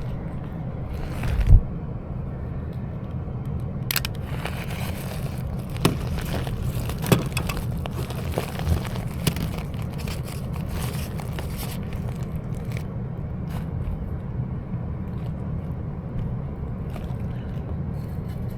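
Handling noises on a loose PVC condensate drain pipe joint: scraping, crackling and scattered clicks, with a sharp thump about a second and a half in. A steady low hum runs underneath.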